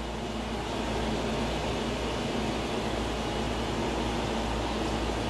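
Window air conditioner running, a steady fan noise with a faint low hum.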